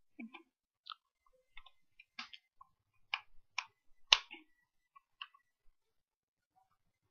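Irregular small clicks and knocks of a plastic mosquito-racket handle and its USB cable being handled, about a dozen in all, the loudest about four seconds in.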